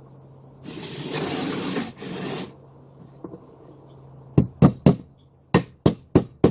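A hammer driving a nail into a wooden kit piece: about seven sharp, separate blows in quick groups in the second half. Before them comes a hiss of about two seconds.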